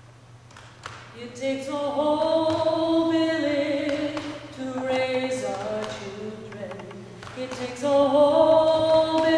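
A woman singing unaccompanied in long held notes, in phrases, starting about a second in after a near-quiet moment.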